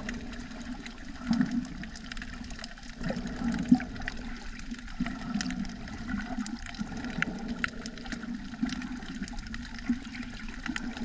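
Sea water sloshing and bubbling around a submerged camera, with a low churning rumble that swells now and then and many scattered sharp clicks.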